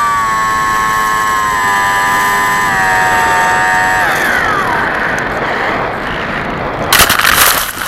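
The Bixler 1.1's brushless outrunner motor whining at part throttle, stepping down in pitch, then cut about four seconds in and winding down with a falling whine while the plane glides with air rushing past. Near the end a loud scraping rush as the foam plane belly-lands in the grass.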